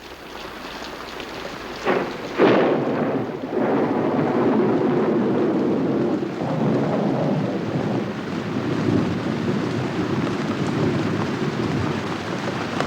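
Tropical thunderstorm: rain and thunder fade in, two sharp thunder cracks come about two seconds in, then a heavy downpour keeps up steadily.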